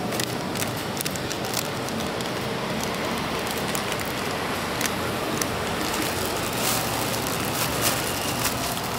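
Pad Thai frying in a hot wok: a steady sizzle dotted with many small crackles, over a low steady hum.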